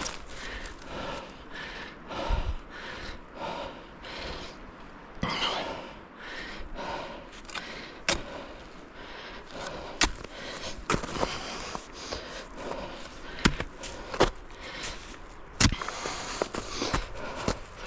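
A hiker breathing hard while walking, with footsteps over rough ground and a few sharp clicks from the steps.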